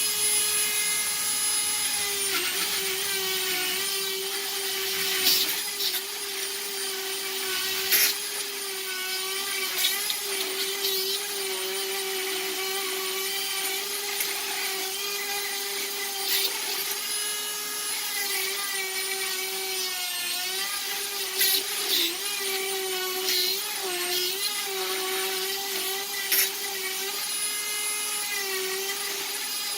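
Dremel rotary tool running at about 25,000 RPM with a 60-grit sanding pad, grinding away the inner lip of a 1/2-inch EMT pull-through elbow. It gives a steady high whine whose pitch dips a little as the pad bites, with a few sharp clicks.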